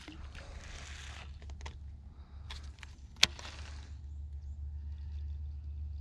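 Steady low hum of an electric trolling motor, with scattered clicks and rustling from handling a baitcasting rod and reel; one sharp click about three seconds in is the loudest sound.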